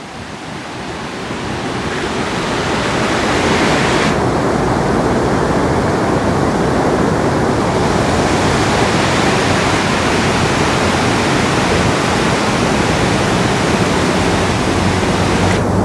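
Muddy floodwater of a river in spate rushing and churning over stones and debris, a steady noisy rush of water that builds over the first few seconds and then holds. The river is still rising.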